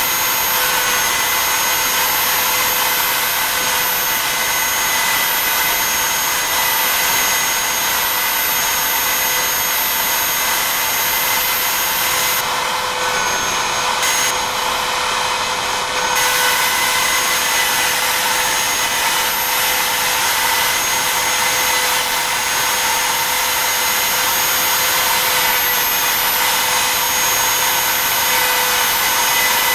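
Router spindle of a BobsCNC E3 desktop CNC running at speed while its end mill cuts wood, a steady high whine over the rough sound of cutting. The tone changes briefly for a few seconds about halfway through.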